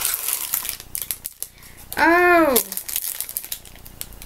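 Plastic snack packet crinkling and rustling as it is opened and handled, with a loud surprised "Oh!" about two seconds in.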